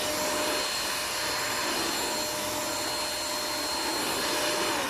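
Queenmade 3-in-1 stick vacuum running steadily with a high motor whine and suction hiss, picking up scattered oatmeal. At the very end the whine begins to drop in pitch as the motor winds down.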